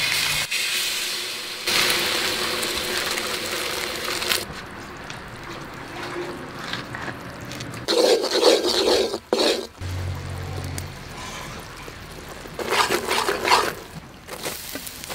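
Liquid hissing and sizzling in a hot metal wok. Later come two short rough bursts as a metal spoon stirs and scrapes a bubbling sugar mixture against the pan.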